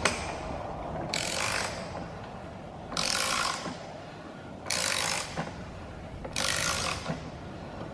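Aerosol cleaner sprayed in four short hissing bursts, each about half a second long and coming every second and a half or so, while the top of a 2.6-litre stroker SRT-4 engine block is cleaned.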